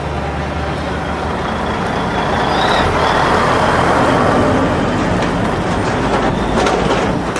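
Heavy diesel semi-truck hauling a loaded low trailer drives close past, its engine and tyres running steadily and loudest around the middle.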